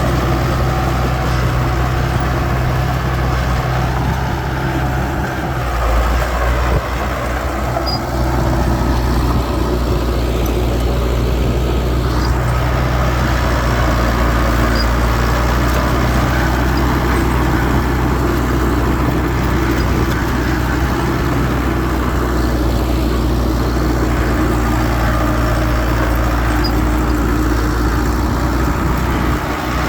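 Heavy diesel engines of earthmoving machinery, dump trucks and bulldozers, running steadily throughout, with a brief swell in the low end about six seconds in.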